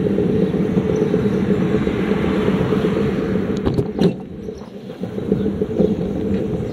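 Motorbike engine running under way, with wind rushing over the handlebar-mounted microphone. About four seconds in there is a sharp click and the engine drops back for a second or so, then picks up again.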